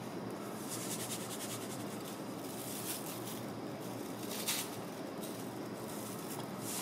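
Salt and pepper being shaken from their containers onto a raw turkey: runs of quick, faint rattling ticks over a steady low hum, stopping about four and a half seconds in.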